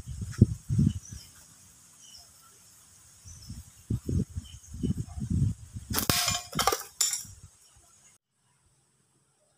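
A glass marble shot from a rubber-band slingshot cracks sharply against a tile target about six seconds in, with a second crack and ringing clatter right after. A few low thumps come before it.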